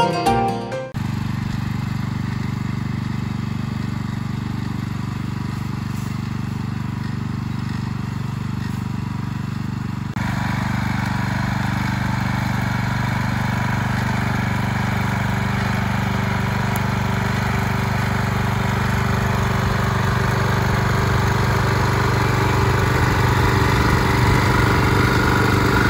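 Small single-cylinder Honda GX270 engine on a Bolens 600 garden tractor running steadily while the tractor tows a log. About ten seconds in, the engine note grows brighter and a little louder. A brief tail of guitar music plays at the very start.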